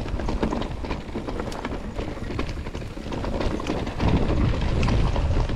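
Mountain bike rolling over a rocky trail: rapid, irregular rattling and knocking from tyres and frame, with wind rumbling on the microphone, louder about four seconds in.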